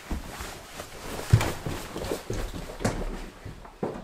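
Comedic farting and diarrhea sound effect: a long run of wet, sputtering noise with uneven louder blasts, the loudest about a second and a half in.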